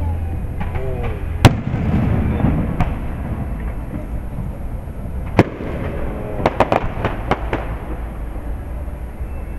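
Fireworks display: aerial shells bursting with sharp booms, the loudest about one and a half seconds in, another near the middle, and a quick string of cracks soon after, over a steady low outdoor rumble.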